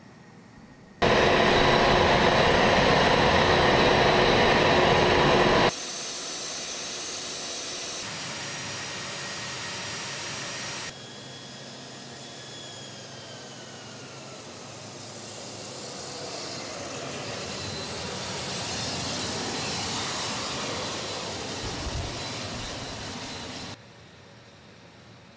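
A-10 Thunderbolt II's TF34 turbofan engines running, in several cut-together stretches: first a loud jet noise with a steady high whine, then quieter engine noise with a falling whine, swelling louder again before cutting off suddenly near the end.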